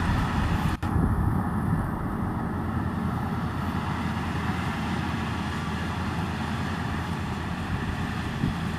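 Combine harvester running steadily under load while cutting a strip of crop, a continuous even machine noise, with a brief dropout just under a second in.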